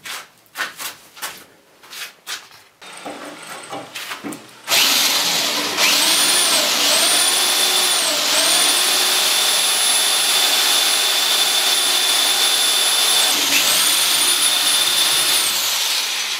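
A few sharp metal knocks and clanks as 2 mm steel blanks are worked in a bending brake. About five seconds in, an electric drill starts and runs loud and fast, its high whine dipping twice as the bit bites into the steel. It stops briefly near the end, starts again and runs down.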